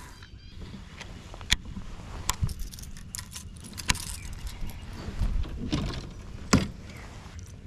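Fishing gear being handled in a kayak: irregular clicks, knocks and light metallic jangling. Sharp knocks come about a second and a half in and near four seconds, and the loudest comes near the end.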